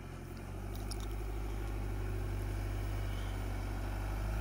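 Chevrolet Colorado's 2.8-litre four-cylinder Duramax turbodiesel running at low revs as the truck crawls over a rocky off-road trail. The engine note grows louder about half a second in, then holds steady.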